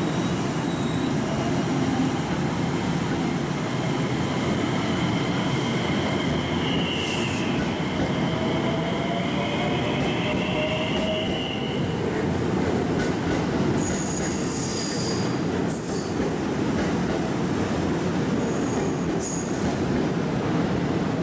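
A JR 227 series electric train pulling out of the platform, a steady rumble of wheels and running gear. Wavering high-pitched wheel squeal comes in about a third of the way through and fades before the halfway mark, with a few short high screeches later on.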